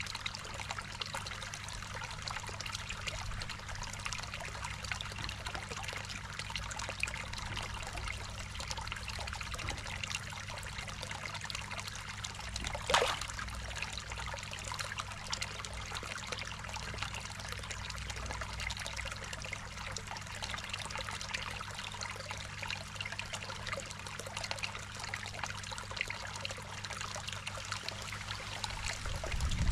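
Water trickling steadily into a koi pond, over a low steady hum. One brief louder splash about halfway through.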